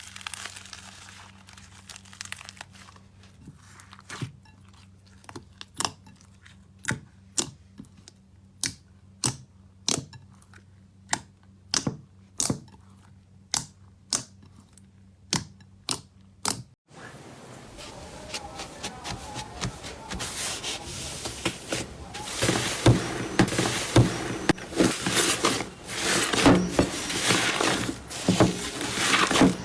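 Slime being handled, popping sharply about twice a second. About halfway through it changes to a denser, louder crackling and crinkling.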